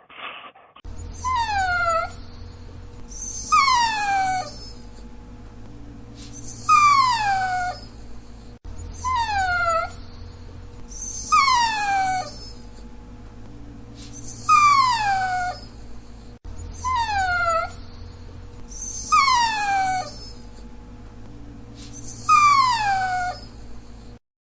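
A dog whining and crying: a string of about nine high cries, each sliding down in pitch, repeating every two to three seconds over a faint steady hum.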